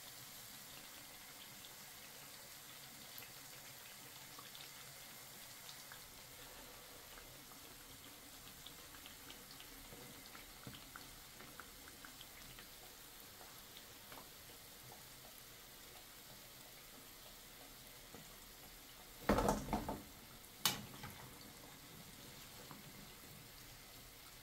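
Mandazi deep-frying in oil in a pan: a faint steady sizzle with scattered small pops and crackles. Near the end, a brief clatter and then a sharp knock about a second later, as a metal spoon works in the pan.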